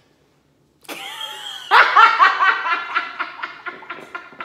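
A woman laughing hard. About a second in it starts with a high squeal, then breaks into loud, rapid pulses of laughter that slowly trail off.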